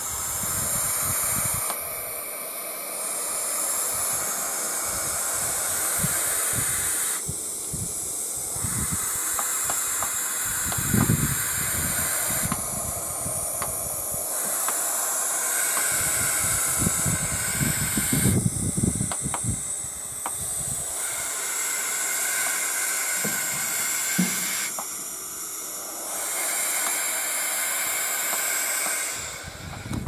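Young barn owls hissing, long drawn-out hisses of several seconds each with short breaks between, the defensive hiss of owlets disturbed in their roost. A few low thumps sound underneath.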